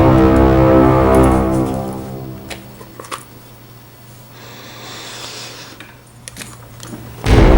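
Background music of sustained chords that fades out about two seconds in; a few faint clicks sound in the quieter gap, and the music comes back loudly near the end.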